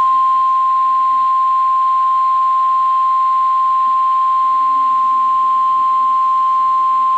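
NOAA Weather Radio warning alarm tone, the single steady 1050 Hz beep over faint radio hiss. It signals that a watch or warning is about to be read.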